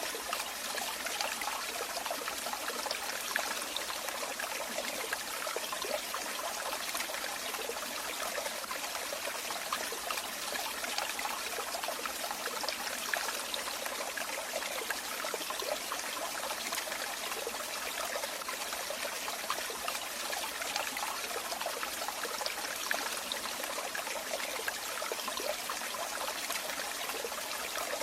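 Running water, a steady stream trickling and splashing with fine crackle and little low rumble.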